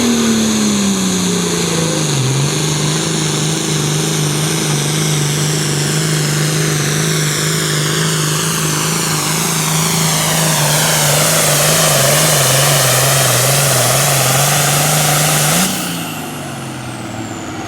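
Super Farm class pulling tractor's turbocharged diesel engine running hard at a steady pitch under full load while dragging the sled. About sixteen seconds in, the engine is backed off and the sound drops away sharply.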